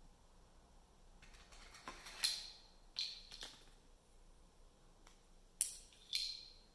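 Metal keyring and its charms clinking, a few sharp little clicks as the keychain is set down on paper over a table. A few seconds later come two more clinks as a fridge magnet is touched against the metal ring.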